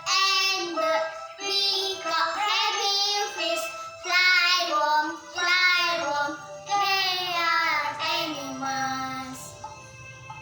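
A young girl singing a melody solo in phrases over musical accompaniment; her voice stops about a second before the end, leaving the accompaniment alone.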